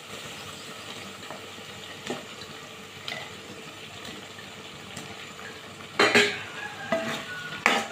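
Masala gravy sizzling steadily in a pan while peeled boiled eggs are stirred in. A metal spoon scrapes and clatters loudly against the pan about six seconds in and again near the end.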